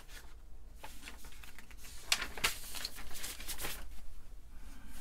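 Printed paper sheets being handled and leafed through: an uneven run of rustles and small taps.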